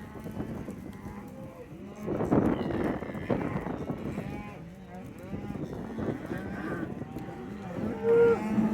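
Several cattle mooing and bellowing, their calls overlapping. The calls are loudest a couple of seconds in, and a short, higher-pitched call comes near the end.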